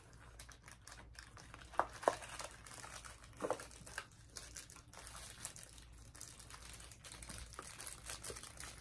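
Small plastic baggie from a mystery pin pack crinkling as it is handled and opened, with a few sharp ticks in the first few seconds.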